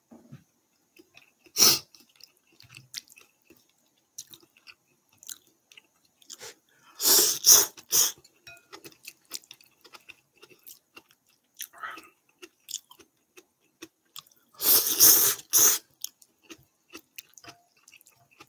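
A person eating ramen: two loud slurps of noodles, about seven and fifteen seconds in, with chewing and small clicks of chopsticks against the bowl in between.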